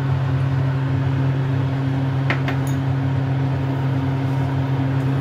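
Steady low hum and hiss of a kitchen fan motor running, with a single light click a little over two seconds in.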